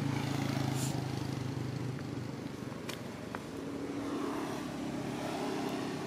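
A motor vehicle's engine running steadily nearby. Its low hum fades out about two seconds in, and a higher steady hum comes in from about three and a half seconds.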